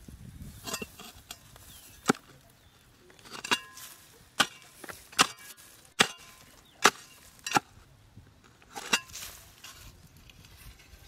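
A series of about nine sharp chopping knocks, irregularly spaced, some with a brief ringing tail.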